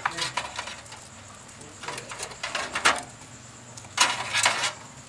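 PC cables and their plastic plugs being handled and pushed onto motherboard header pins: three bursts of rustling and clicking, the loudest about four seconds in.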